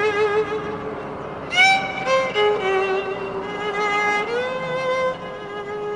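Background music: a solo violin playing long held notes with vibrato, rising to a brighter high note about a second and a half in.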